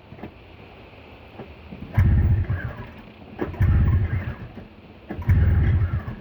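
Snowmobile engine being cranked over three times, each attempt turning it over for about a second with a fast chugging and then dying away without catching: a cold engine that won't start.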